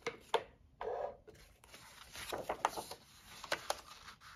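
Paper and cardstock being handled and pressed flat by hand on a notebook: soft rustling with a few light taps and clicks.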